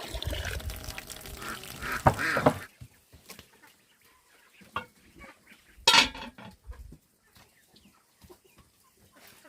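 Poultry calling: chickens or ducks squawk over a loud stretch of noise in the first two and a half seconds. Another sharp call comes about six seconds in, followed by scattered faint clicks.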